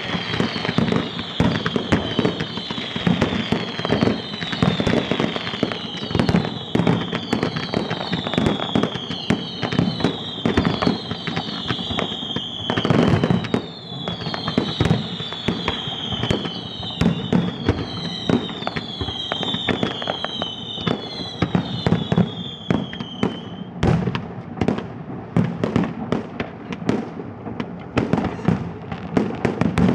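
Fireworks display: a dense, continuous barrage of bangs and crackling, with a run of high whistles, each falling in pitch, about one a second. The whistles stop about three-quarters of the way through, leaving only the bangs and crackle.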